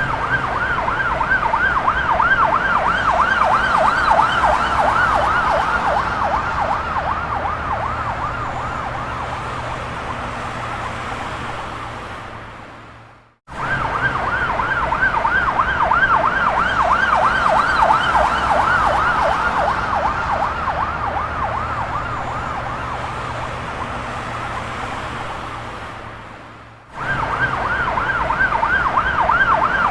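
Ambulance siren in a fast yelp, its pitch sweeping up and down several times a second over a low steady hum. It slowly fades, cuts out about 13 seconds in and starts again at full strength, then does the same near the end.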